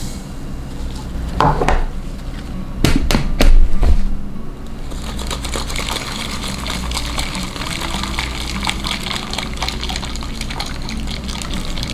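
Liquid poured onto carrot pieces in a tall glass canister, then a few sharp knocks about two to four seconds in, the loudest sounds. From about five seconds in, a steady splashing and sloshing as the liquid is shaken inside the closed canister.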